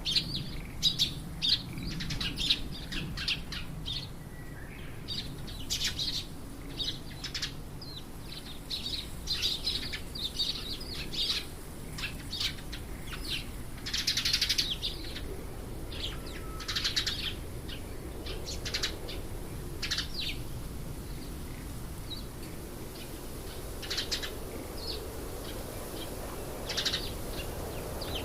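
Birds chirping: a busy run of short, high chirps that thins out to scattered single calls in the last third.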